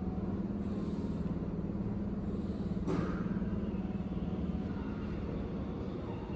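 Railway station platform ambience: a steady low rumble with a steady hum, and one sharp click about three seconds in.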